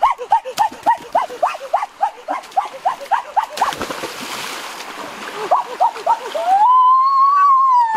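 A turkey calling in quick, repeated squawks, about four a second, then a splash as it plunges into a river about three and a half seconds in. Near the end comes one long cry that rises and then falls.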